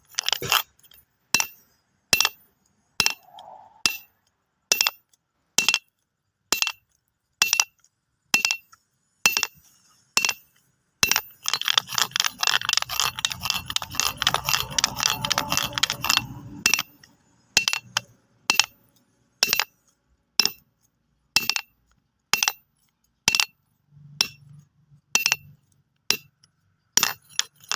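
Stones knocked together in sharp single clacks, roughly one a second. About eleven seconds in there is a denser stretch of rattling and clicking that lasts about five seconds.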